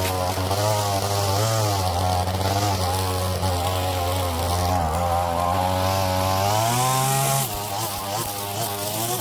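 String trimmer (weed eater) engine running under load, its pitch wavering as the throttle is worked, climbing about seven seconds in and then dropping back.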